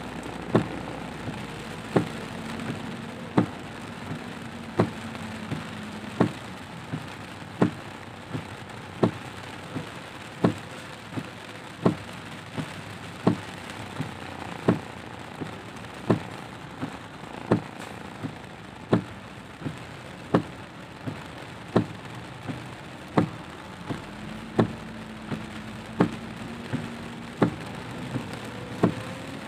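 Heavy rain pattering on a car's windshield and body, heard from inside the car, with the windshield wipers knocking sharply at the end of each sweep, about once every second and a half. A low engine hum is heard at the start and again near the end, rising slightly at the very end.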